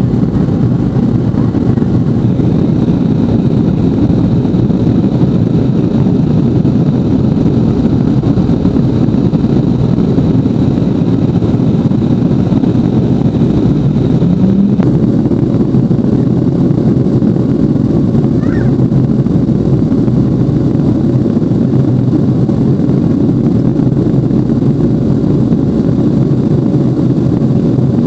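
Lockheed L-1011 TriStar cabin noise heard from a window seat over the wing: the Rolls-Royce RB211 turbofans and rushing air, loud and steady through the climb after takeoff.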